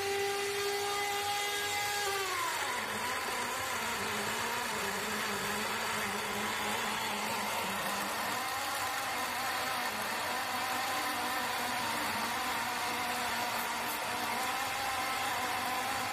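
Magnevane M15 Swordfish pneumatic chainsaw running on 2.5 bar of air and cutting through a log. Its whine drops in pitch about two and a half seconds in as the chain loads up in the cut, then carries on steadily under a noisy hiss.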